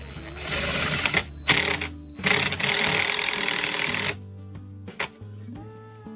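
Cordless DeWalt 20V Max impact driver running in three bursts as it drives screws into a metal door hinge; the last and longest burst stops about four seconds in. Guitar music plays underneath.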